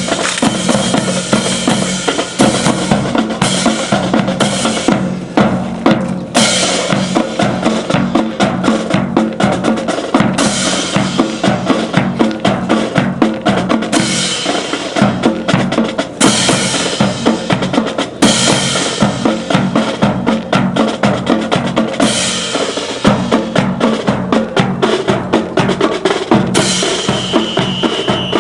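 Drum-led music with a steady, busy beat of bass and snare drum, with a bright crash every few seconds.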